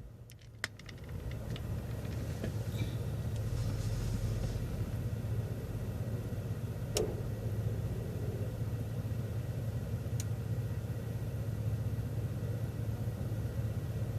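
Steady low engine hum and road noise from inside a city transit bus, swelling over the first couple of seconds, with a few sharp clicks and rattles.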